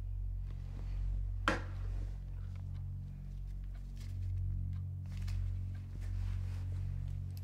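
Light handling rustles, with one sudden sharp rustle about a second and a half in, over a low steady hum.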